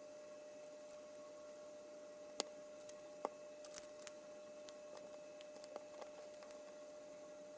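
LEGO bricks being handled and pressed together: two sharp plastic clicks a few seconds in, then a run of lighter ticks, over a faint steady hum.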